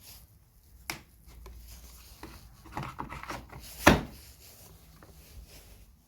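Handling noises of chainsaw parts and tools on a workbench: a few scattered knocks and some rubbing, with the sharpest knock about four seconds in.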